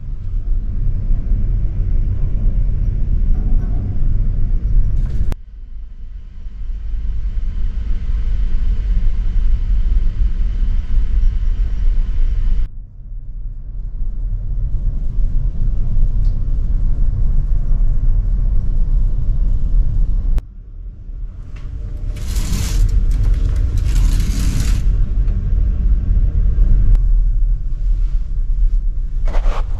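Steady low rumble on board a ferry under way at sea, cut into several short stretches that start and stop abruptly. Two loud hissing bursts come about three-quarters of the way through.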